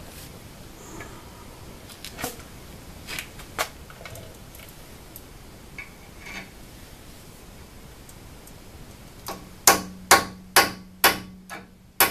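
A hammer tapping a metal punch held up in a hole against an aluminium plate, to mark a screw-hole position. After a few light handling clicks, about six sharp, ringing strikes come near the end, roughly two a second.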